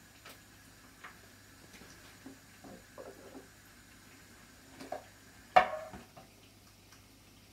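Light clicks and taps of kitchen things being handled, then, about five and a half seconds in, one loud clink of a ceramic plate set down on the counter, ringing briefly.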